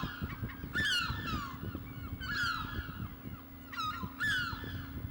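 Bird calls: about five short cries, each falling in pitch, spaced unevenly, over a faint steady low hum.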